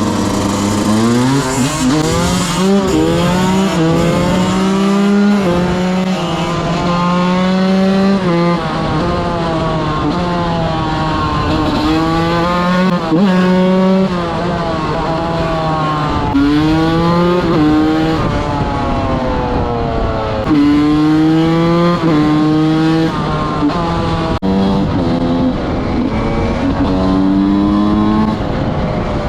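125 cc two-stroke enduro motorcycle engine being ridden hard. The revs climb and drop again and again as the rider accelerates, shifts and backs off.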